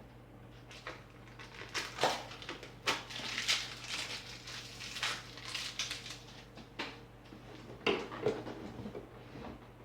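Packing material rustling and crinkling as it is pulled off a vacuum cleaner, with scattered light clicks and knocks of handling. A faint steady low hum runs underneath.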